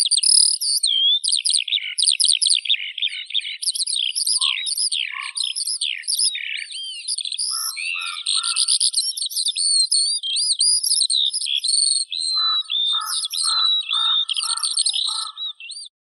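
Skylark singing: an unbroken stream of fast, high warbles and trills, with a short run of lower repeated notes about eight seconds in and a longer one near the end.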